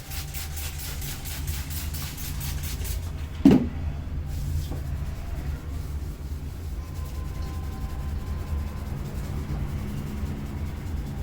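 Rapid, even strokes of hands tapping during a head massage for about three seconds, then one heavy thump about three and a half seconds in, with fainter strokes after it. A steady low rumble lies under it all.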